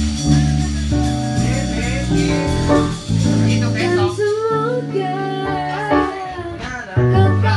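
A woman singing into a handheld microphone over instrumental accompaniment. Her voice holds a note with vibrato near the middle.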